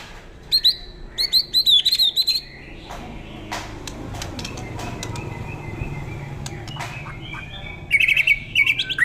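White-rumped shama (murai batu) singing. Quick runs of sharp chirps in the first couple of seconds, then a quieter stretch with faint notes, then a loud, fast series of repeated notes near the end.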